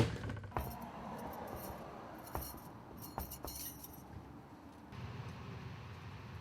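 Faint jingling and clinking, like keys or small metal objects, with a few light clicks, for about four seconds; then a low steady hum.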